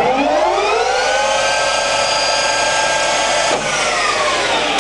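Colchester Student centre lathe's geared headstock spinning up to its top speed of 1800 rpm, a rising whine that levels off. About three and a half seconds in there is a click, and the spindle starts to wind down, the whine falling in pitch.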